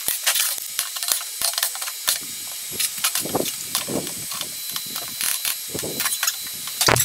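Irregular clicks and clanks of steel parts being handled and set in place on a steel welding table, with a louder knock near the end.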